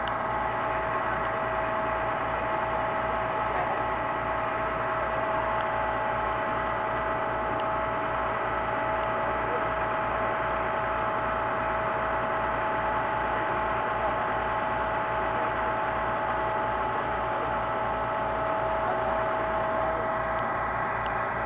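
Steady electrical hum and whine: several constant tones over a low, evenly repeating pulse, unchanging throughout.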